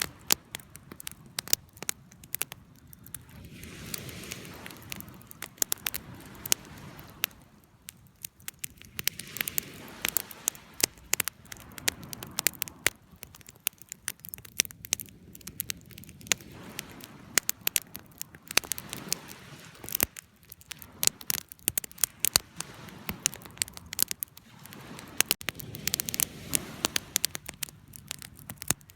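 Wood fire burning, with irregular sharp crackles and pops over a soft rush of flame that swells and fades every few seconds.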